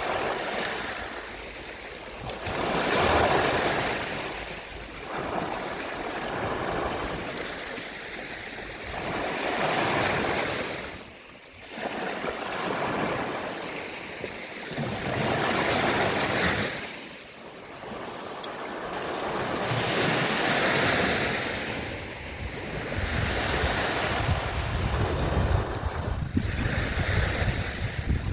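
Gentle sea waves washing onto a shore, swelling and falling back every few seconds, with a low rumble of wind near the end.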